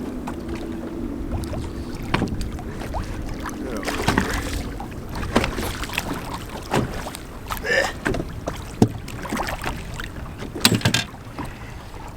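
Fishing boat on the water: a steady wash of wind and water noise, with a low steady hum for the first few seconds. Scattered knocks and clatter follow as a just-caught catfish is landed and handled in the boat.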